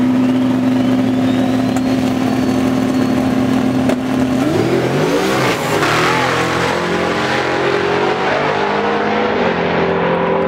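Pickup drag truck's engine held at high revs on the starting line, with a thin whistle rising above it. About four seconds in the note breaks as the truck launches, and the engine revs climb again as it pulls away down the strip.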